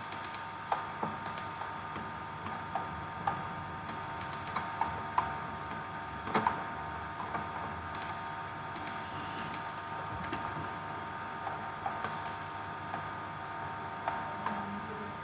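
Irregular, scattered clicks from a computer mouse and keyboard, a few at a time, over a steady background hum.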